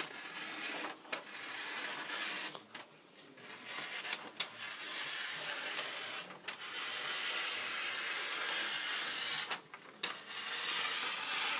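Scissors cutting through wrapping paper: a long, rasping cut that runs on with a few brief pauses.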